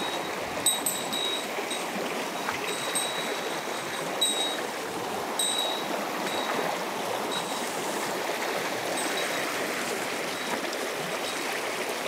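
Mountain stream water rushing steadily, with short high pings recurring irregularly every second or so.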